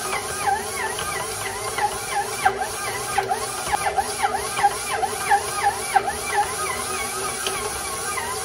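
KitchenAid stand mixer running with its dough hook, kneading a stiff bread dough. The motor's whine dips and recovers in pitch about twice a second under the load of the dough.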